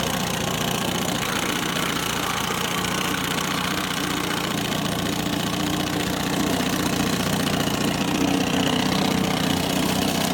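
1971 Johnson 6 hp two-cylinder two-stroke outboard running steadily in forward gear in a test barrel, a little louder from about six seconds in.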